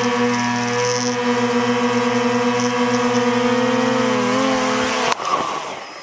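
Hubsan Zino 2 quadcopter's motors and propellers whirring steadily in a close hover, a loud buzzing hum with a steady pitch that wavers briefly a little after four seconds. About five seconds in it cuts off sharply and a quieter, fading whir follows.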